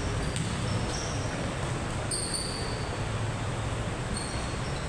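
Steady background noise of an indoor basketball game in a large hall, with a few brief high squeaks of sneakers on the court.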